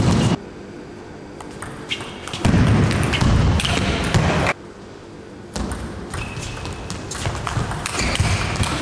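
Table tennis rally: sharp clicks of the ball off the rackets and the table, with short shoe squeaks on the court floor. About two and a half seconds in there is a two-second stretch of loud, low, thudding noise.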